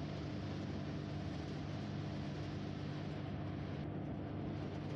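Steady mechanical drone with a low hum and a hiss, heard inside a rail vehicle's cab.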